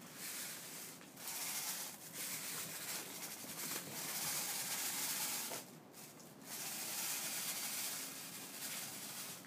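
Broom bristles scraping across paving stones as a Weimaraner pushes the broom along, in long scraping strokes broken by short pauses, the longest pause about six seconds in.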